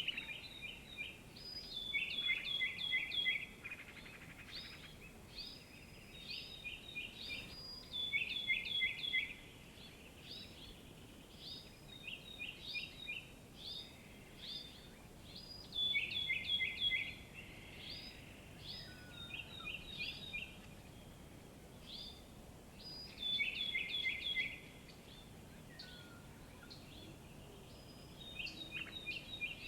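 Songbird singing outdoors: bursts of quick, high chirps, each a second or two long, repeated every few seconds over faint steady background noise.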